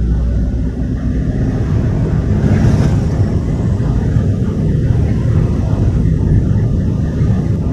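Steady low rumble of a vehicle on the move in slow street traffic, engine and road noise together, with a brief louder hiss about three seconds in.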